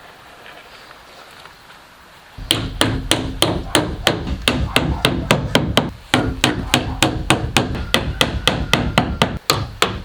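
A hammer striking in a fast, even run of blows, about five a second, with a short break about six seconds in and another near the end.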